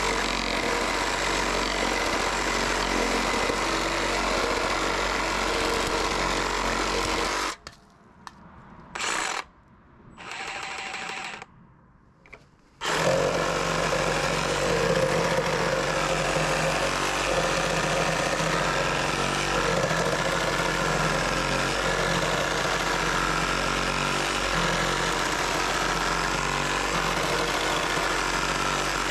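Makita DJR188 18V brushless cordless reciprocating saw cutting through a softwood timber block, running steadily at speed. About a third of the way in it stops for about five seconds, with two short quieter bursts, then cuts again.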